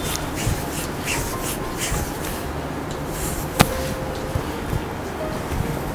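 Rustling and handling noise of a cotton saree being shown and moved, with one sharp click a little over halfway through.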